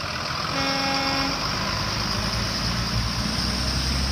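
School buses pulling away on a wet road: diesel engines running with a steady hiss of tyres on the wet pavement, and a short horn toot about half a second in. The engine's low rumble grows near the end as the next bus comes through.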